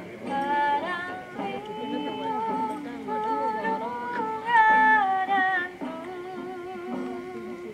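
Dance music with singing: a melody of long held notes with a slight waver.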